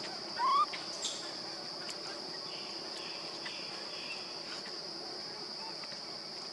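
Steady high-pitched drone of insects in the background. About half a second in, one short rising squeak-like call cuts through.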